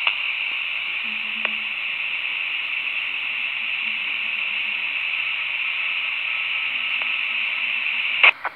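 Baofeng UV-3R handheld radio's speaker giving a steady FM receiver hiss while it receives a noisy signal with no speech. A couple of sharp clicks near the end, after which the hiss drops away, as the squelch closes.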